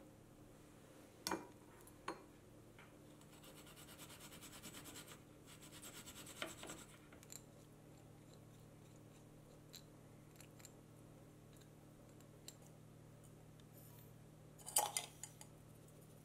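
Quiet kitchen prep sounds. A couple of sharp clicks come first, then a fast rhythmic rasping as fresh ginger is grated on a metal grater and scraped off into a glass bowl of chopped green onion. Near the end there is a brief clatter as sugar is tipped in from a small glass dish.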